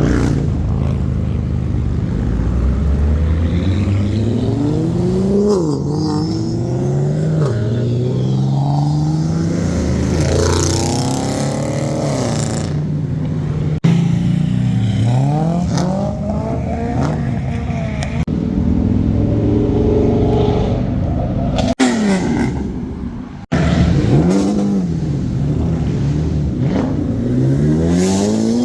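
Car engines accelerating hard and revving, the pitch climbing and dropping back with each gearshift, in several separate takes cut abruptly together.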